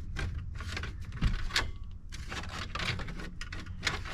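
Irregular clicks and small knocks of plastic and metal dash parts being worked loose by hand, over a steady low hum.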